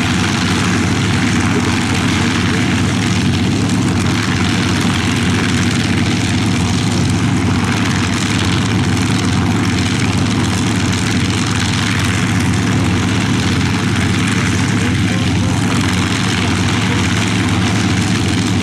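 Propeller-driven WWII fighters' V12 piston engines running steadily at low power while taxiing in to park.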